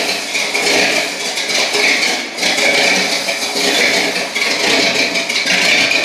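Ford Galaxie engine idling steadily with a rattle, running after a start on a borrowed truck battery.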